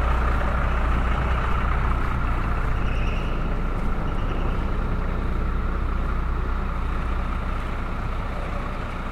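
A large motor vehicle's engine running close by with a steady low rumble that slowly fades away near the end.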